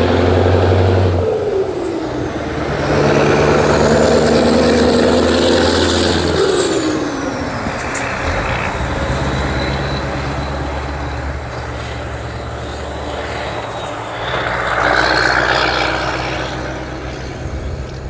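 Classic diesel race trucks running hard on a circuit, engine pitch dropping as each one passes, and growing louder again as another comes through. A faint high whistle rises and then falls during the middle pass.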